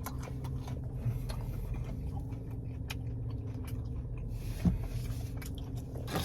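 A person chewing a breaded mozzarella cheese bite close to the microphone, with small wet mouth clicks, over a steady low hum. A single louder knock comes about two thirds of the way in.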